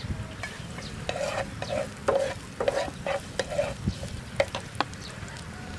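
Spatula stirring and scraping chopped garlic frying in a black frying pan on a portable gas stove. A quick run of scrapes begins about a second in, followed by a few sharp taps against the pan.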